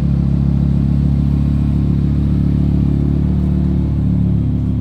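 Lamborghini Huracán's V10 engine idling steadily while it warms up, its low even note changing slightly near the end.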